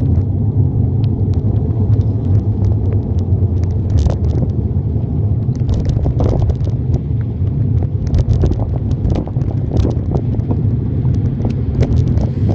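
Steady low rumble of wind buffeting the microphone of a handlebar-mounted phone while cycling. Frequent sharp taps and clicks are scattered through it.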